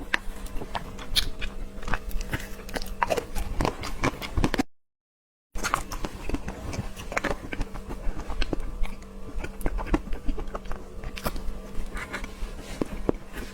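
Close-miked eating sounds: a person chewing soft dessert, with irregular wet mouth clicks and smacks. The sound cuts out completely for just under a second about a third of the way in.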